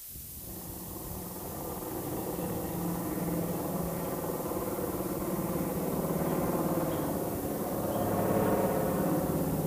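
Recorded aeroplane engine sound effect played over the hall's loudspeakers, fading in and running steadily, then cut off suddenly at the end.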